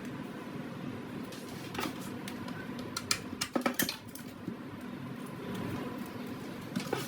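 Light clicks and taps from handling an old iPod: one about two seconds in, a quick cluster around three to four seconds, and another near the end, over a steady background hum.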